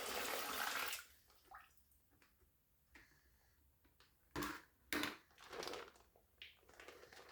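Water pouring from a bucket into a Scrubba wash bag, stopping about a second in. After that come a few short knocks and rustles.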